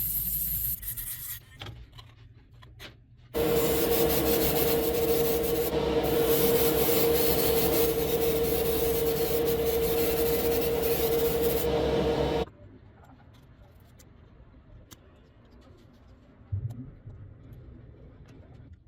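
A small electric power tool runs steadily for about nine seconds with a constant hum and a grinding, sanding noise as it works on the die-cast metal model. It is preceded by a brief burst of similar noise and some light clicks, and followed by a few faint handling clicks and a soft knock.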